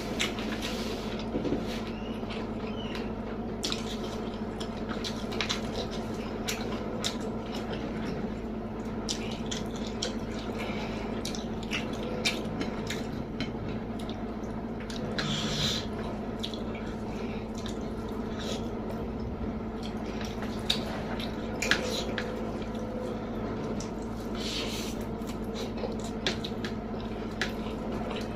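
Wet chewing, lip smacks and mouth clicks of someone eating a rice meal with omelette, eggplant sambal and stir-fried water spinach, in irregular short bursts over a steady low hum.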